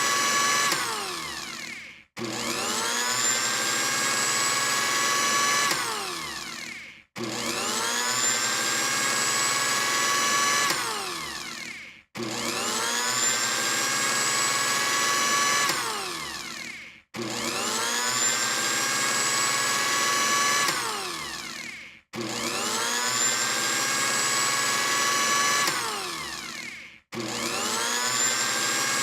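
Electric blender motor switched on and off over and over: each time it whines up to speed, runs steadily for about three seconds, then winds down with a falling whine to a brief stop before starting again, about six starts in all.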